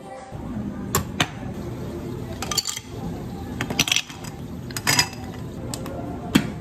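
Ice cubes clattering and clinking as a metal scoop digs them out and drops them into two glass tumblers. It gives about six sharp clinks spread over a few seconds, over a steady low hum.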